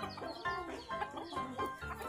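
Chickens clucking over background music with a steady beat.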